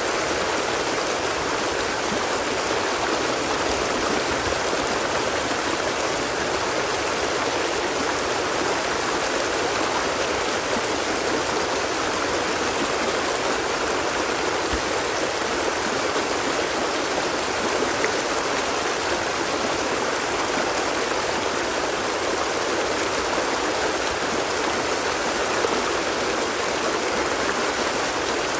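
Flowing water of a stream, a steady even wash of sound that never changes.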